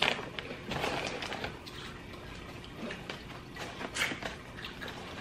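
A plastic potato-chip bag crinkling as a hand reaches in, and crisp chips being crunched while chewing, heard as short irregular crackles, the loudest right at the start.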